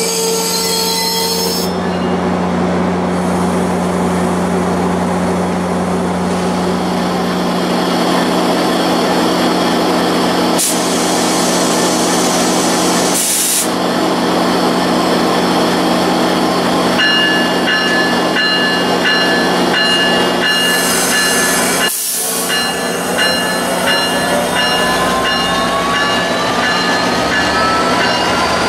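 An EMD F59PHI diesel locomotive running loudly at a standstill beside the platform, with a hiss of air. From about two-thirds of the way in, a whine rises steadily in pitch as it powers up to pull the train away.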